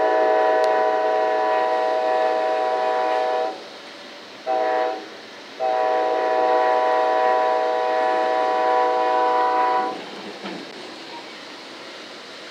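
Locomotive air horn sounding a multi-note chord: a long blast, a short one and a final long blast, the closing part of the long-long-short-long signal for a road crossing. It is heard from inside a passenger car behind, over the steady rumble of the wheels on the rails.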